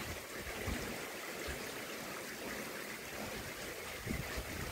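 Steady hiss of monsoon rain falling, with a few brief low buffets of wind on the microphone.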